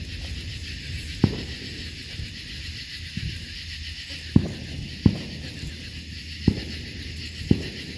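Small handheld firework burning with a steady hiss, giving five sharp pops at irregular intervals.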